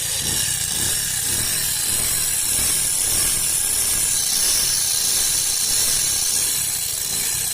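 Bajaj Discover motorcycle's single-cylinder engine running with a harsh, rasping rattle. No oil is coming up through the open check hole, so the engine is running without oil circulation: its oil-pump drive is broken.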